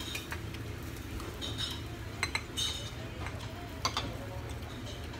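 Eating utensils clinking against plates and dishes at a meal table: a scattering of light, irregular clinks over a steady low hum.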